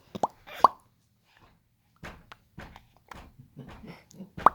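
A baby making popping noises with his mouth: short, sharp pops, two loud ones near the start and another at the end, with softer clicks in between.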